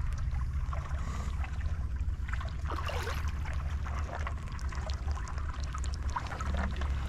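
Shallow flood water trickling over a muddy dirt road, with scattered small clicks and crackles over a steady low rumble.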